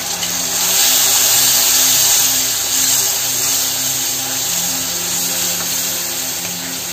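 Tamarind water sizzling in hot sesame oil with sautéed green chillies in a kadai, stirred with a steel ladle. The sizzle swells about a second in and then slowly eases as the liquid takes the heat.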